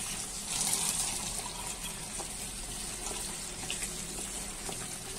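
Boiled chana dal and its cooking water poured into a pan of hot fried masala and stirred in with a spatula: a steady watery rushing hiss, a little louder from about half a second in.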